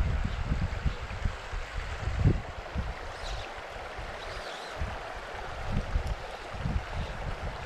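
River water flowing over a shallow, rocky bed: a steady wash of water noise, with uneven low rumbling underneath.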